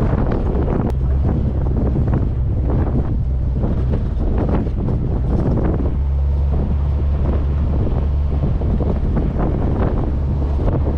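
Wind buffeting the microphone of a bonnet-mounted camera on a Subaru Outback driving up a rocky four-wheel-drive track, with a heavy steady rumble and irregular crackle of tyres on loose stones.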